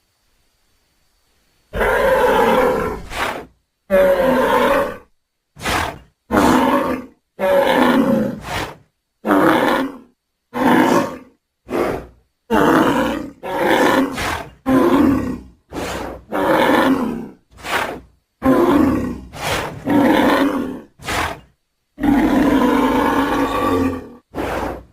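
Bull bellowing and grunting in a rapid string of about sixteen separate calls, starting about two seconds in. Each call lasts from a fraction of a second to about a second and a half, many with a falling pitch.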